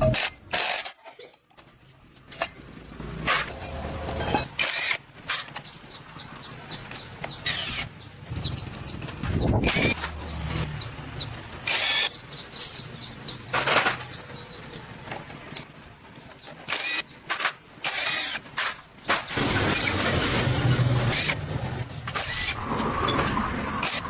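Irregular sharp knocks and clanks of work on heavy machinery, with a low engine rumble that comes and goes, loudest near the start and again after about 19 seconds.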